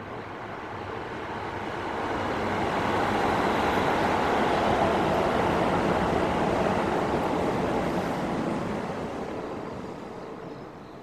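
Electric train passing overhead on an elevated railway viaduct. Its steady noise swells over the first few seconds, holds, and fades away near the end.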